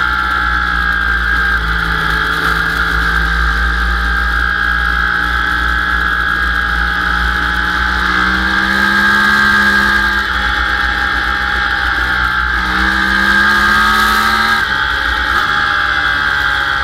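Sport motorcycle engine running hard at speed on a circuit, with wind rushing over the microphone. About eight seconds in, the engine note climbs as the bike accelerates, then drops suddenly. It climbs and drops again about four seconds later.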